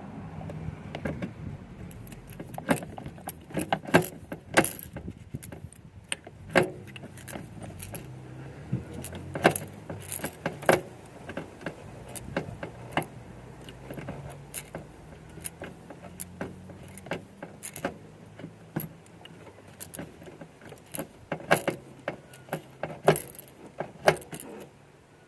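Irregular metallic clicks, clinks and light clatter of tools and small metal door parts being handled.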